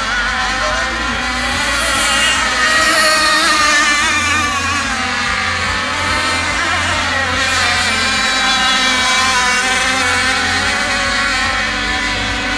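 Several radio-controlled 26 cc catamaran/tunnel-hull racing boats' two-stroke petrol engines running at high revs, their overlapping whines wavering up and down in pitch.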